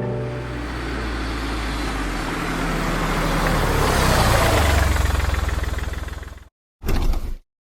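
Bus engine sound effect: a steady engine hum with hiss that rises in pitch and grows louder around the middle, as if the bus is pulling away. It cuts off suddenly about six and a half seconds in, followed by a brief half-second burst of the same sound.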